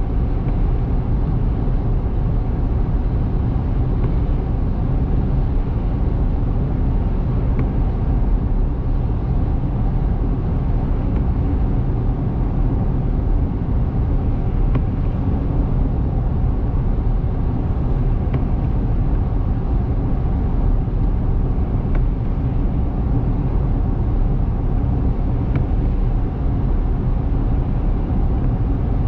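Steady road noise of a car driving at highway speed: a low, even rumble of tyres and engine, with a faint tick about every three and a half seconds.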